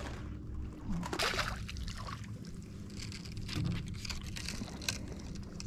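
Water sloshing and splashing around a small fishing skiff, with wind on the microphone and a steady low hum underneath. The splashes come in irregular bursts about a second in and again a few seconds later.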